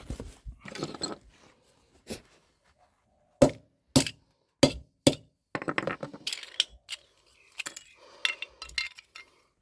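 Metal scrap parts being knocked and handled: four sharp knocks about half a second apart, then a run of lighter clinking and clattering.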